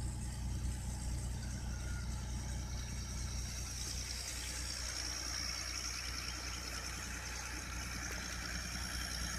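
Steady low engine hum, like a motor idling, with a faint high steady tone rising in the middle and fading near the end.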